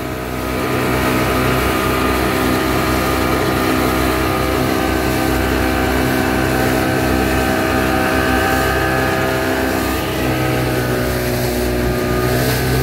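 A 30 hp outboard motor runs at a steady, high cruising speed, driving a small boat, with the rush of water and spray from the wake beneath it.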